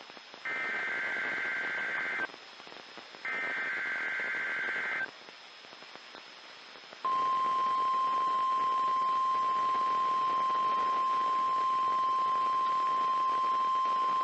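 NOAA Weather Radio emergency alert test: two short bursts of the warbling SAME digital header, a pause of radio static, then the steady 1050 Hz Weather Radio warning alarm tone starting about seven seconds in and holding, over radio hiss.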